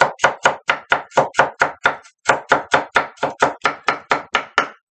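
Chef's knife chopping fast on an end-grain wooden cutting board, a steady run of sharp knocks about four or five a second. There is a brief break about two seconds in, and the chopping stops just before the end.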